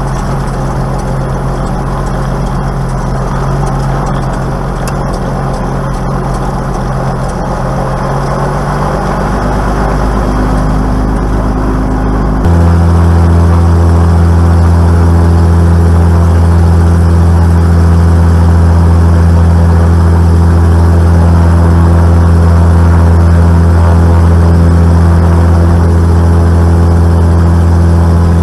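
Piston engine of a Velocity canard pusher aircraft running at taxi power, heard from inside the cockpit, its pitch rising slightly about ten seconds in. About twelve seconds in the sound cuts abruptly to a louder, steady engine note with a deeper hum.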